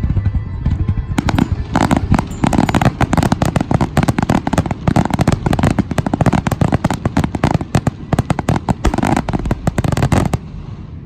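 Fireworks finale barrage: a rapid, dense volley of bangs and crackles begins about a second in and cuts off suddenly near the end, with music playing underneath.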